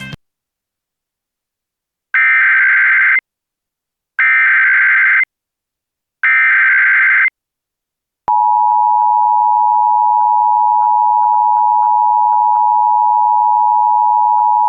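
Emergency Alert System broadcast tones: three separate one-second bursts of SAME header data tones, about a second apart, then the steady two-tone EAS attention signal starting about eight seconds in. The header encodes the alert, and the attention signal announces that an emergency voice message follows.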